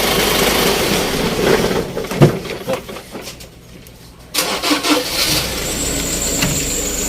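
Isuzu 6WF1 common-rail diesel engine that is hard to start: running, then shut off about two seconds in and near quiet, then cranked and firing up again a little after four seconds, settling into a steady run with a thin high whine.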